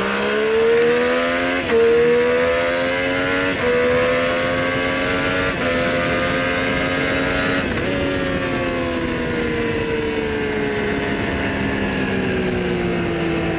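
Triumph Street Triple's inline three-cylinder engine pulling hard through the gears, its pitch climbing with three quick breaks at the upshifts. Then the throttle closes and the revs fall away steadily as the bike slows.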